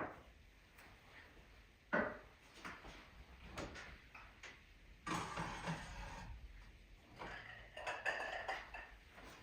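Kitchen handling sounds: a sharp knock at the start and another about two seconds in, light taps, a stretch of rustling or scraping about five seconds in, then a run of light clattering near the end.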